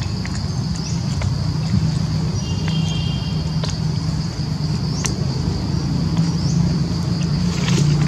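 A steady low engine-like hum runs through, with a constant high insect drone above it. A few faint ticks and short high chirps, and a brief whistled note about three seconds in.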